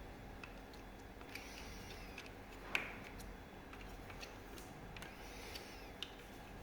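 Faint, scattered clicks and taps of parts and tools being handled during a disassembly, with one sharper click a little under three seconds in and a smaller one about six seconds in.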